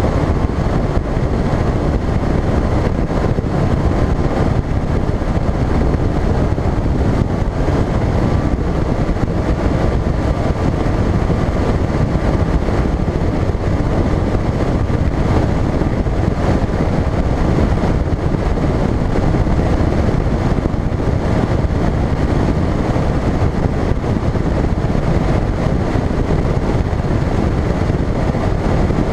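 Bass boat outboard motor running steadily at speed, its engine drone blended with dense wind noise buffeting the microphone.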